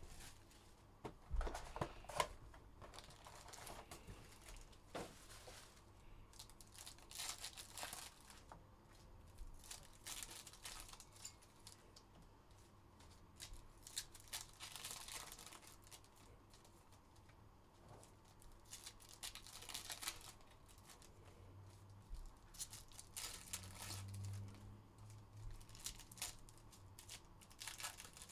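Trading-card packs being handled and their wrappers torn open and crinkled, in short scattered bursts, with a couple of sharper knocks about two seconds in as the cardboard hobby box is handled. Faint throughout.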